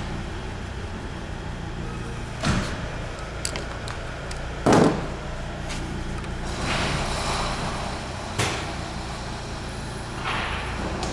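Hand tools working on a car's rear wheel hub: a few short metal knocks and clinks, the loudest about five seconds in, with some scraping and handling noise, over a steady low hum.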